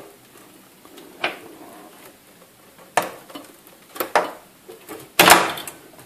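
Plastic retention clips of a desktop motherboard's RAM slot clicking as they are pushed down at both ends, a few light separate clicks, then a louder snap a little after five seconds in as the clips release and the memory stick pops up out of the slot.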